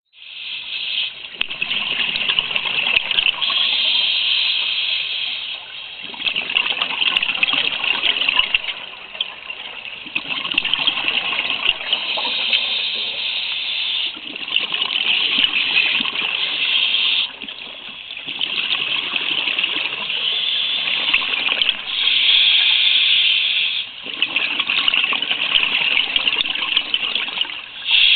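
A scuba diver's regulator breathing heard underwater, with exhaled bubbles rushing past the camera housing. It comes in repeated hissing surges of a few seconds each, separated by brief dips.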